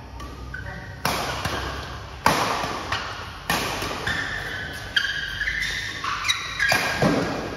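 Badminton rally: rackets strike a shuttlecock about six times, each hit a sharp crack with an echo from the hall. Shoes squeak on the court mat between the hits.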